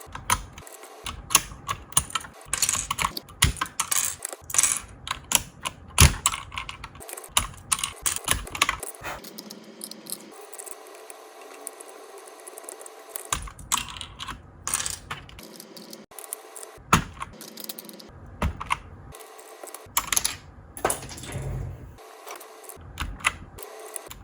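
Typing on a keyboard fitted with Mario keycaps: irregular key clacks in quick runs, thinning out for a few seconds around the middle.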